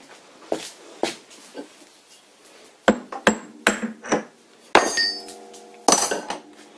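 Metal knocks and clinks as a drill chuck is worked loose and pulled out of a lathe's tailstock quill. Two harder knocks near the end leave a lingering metallic ring.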